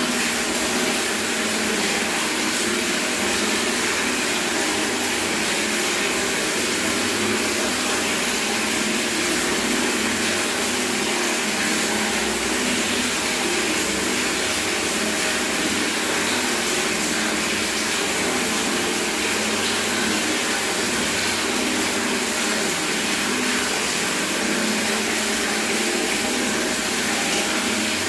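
Tap water running steadily straight into a bucket, a constant splashing rush.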